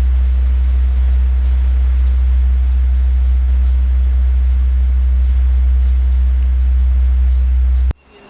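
Loud, steady low rumble that cuts off suddenly near the end.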